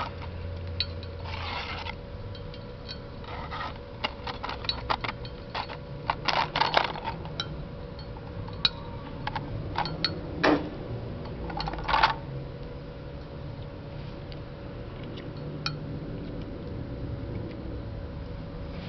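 Scattered metallic clinks and taps of steel being handled, with a few sharper knocks around the middle, over a steady low hum.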